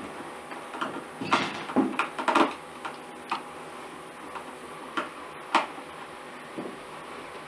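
Screws being driven with a hand screwdriver into a convector heater's perforated metal grille housing: a quick cluster of clicks and scrapes about a second in, then a few single clicks, over a steady low hiss.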